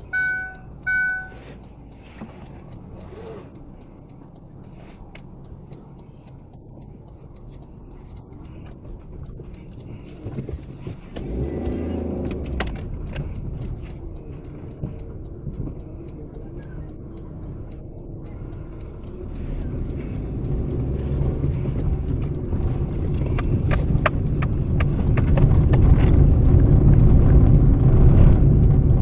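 A car moving off, with low engine and road rumble that builds steadily and is loudest near the end, as the car picks up speed. Three short beeps sound right at the start, and there are scattered light clicks and rattles.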